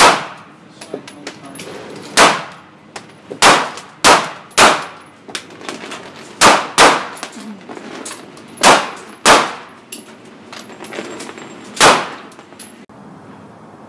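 A pistol fired about ten times in an indoor shooting range, single shots and quick pairs at uneven intervals, each sharp crack ringing off the range walls, with fainter cracks between.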